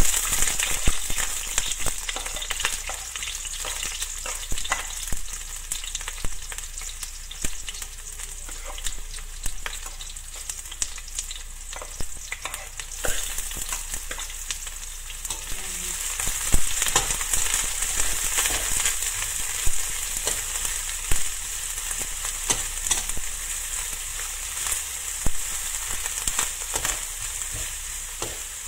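Sliced onions sizzling in hot olive oil in a pan: a steady hiss with many sharp crackles and pops, and a spatula stirring and scraping through them.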